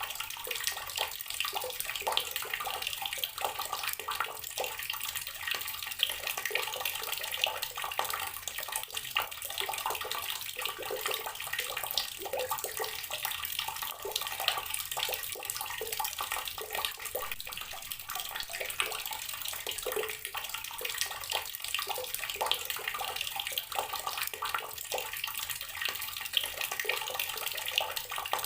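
Water running steadily from a garden tap, splashing and spattering without a break.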